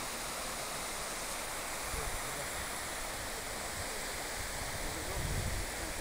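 Keila waterfall and the Keila River below it rushing, a steady even roar of water. A low rumble comes in near the end.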